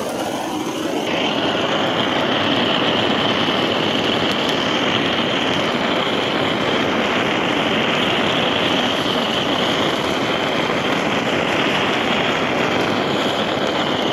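Handheld gas torch burning with a steady hiss, searing the cheese topping on a dish.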